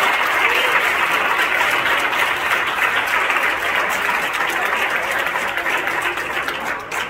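Audience applause: many people clapping steadily, easing off slightly toward the end.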